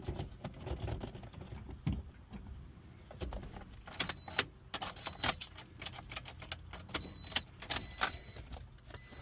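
A run of light clicks and rattles from hands handling keys and parts inside a car, thickest in the second half. Several short, high-pitched beeps sound among them.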